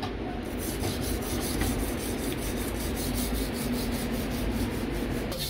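Chinese cleaver being sharpened on a whetstone: steady scraping of the steel blade across the stone.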